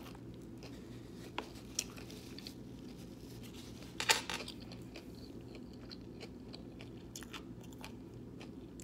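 A person chewing a sandwich with a crunchy crust close to the microphone: scattered small crunches and one loud, sharp crunch about four seconds in, over a steady low hum.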